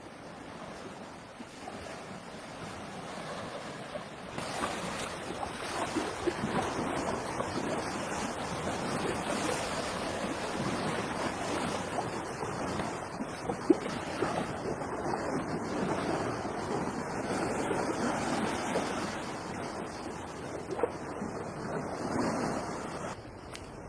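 Steady rain falling on a tent, getting heavier a few seconds in, with scattered sharp drops and one louder tap a little past halfway. The rain drops away just before the end.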